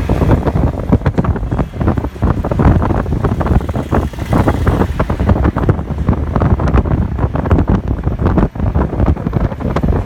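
Loud, irregular wind buffeting on the microphone, heaviest in the low rumble.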